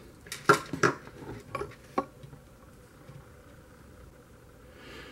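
About five sharp plastic clicks and light clinks in the first two seconds as a Bandai Tamagotchi virtual pet and its metal ball-chain keyring are handled and set down on a table.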